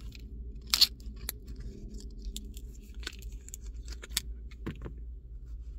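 A coin-cell battery being pried and torn out of its plastic blister pack with a flathead screwdriver: scattered plastic clicks and crackles, the sharpest about a second in. A low steady hum runs underneath.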